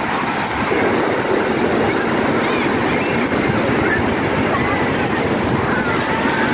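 Ocean surf breaking and washing over the sand, a steady rush of water, with faint distant voices calling.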